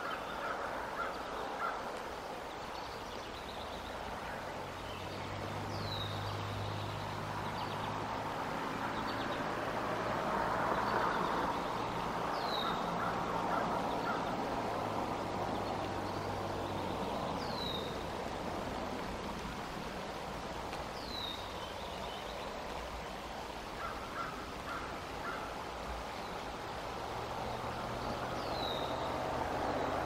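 Steady outdoor background noise with a small bird's short, down-slurred call repeating every few seconds, about five times. A low steady hum comes in about five seconds in, fades out a little past the middle, and returns near the end.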